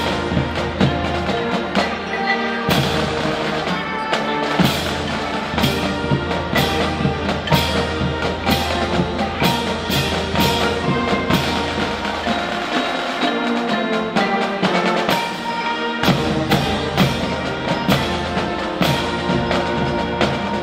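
Music with drums: sustained instrument tones over a steady percussion beat. The low bass drops out for a few seconds around the middle.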